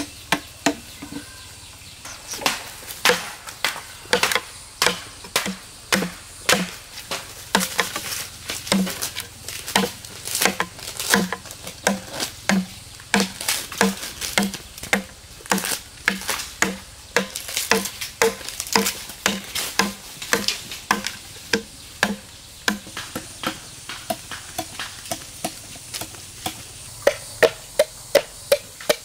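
A machete chopping green bamboo tubes, about one to two blows a second, each with a brief pitched knock. Near the end the chops come quicker and higher-pitched as a tube is trimmed.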